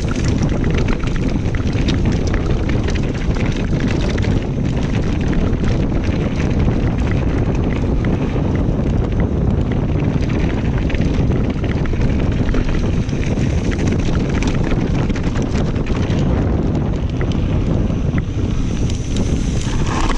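Wind buffeting the microphone of a chest-mounted action camera on a fast mountain-bike descent, over the tyres rolling on rough dirt and stones and a constant light clatter of the bike over the bumps.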